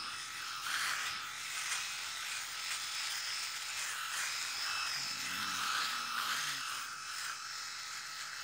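Multi-head rotary electric head shaver running, a steady high-pitched buzz that swells and fades as it is glided over beard stubble.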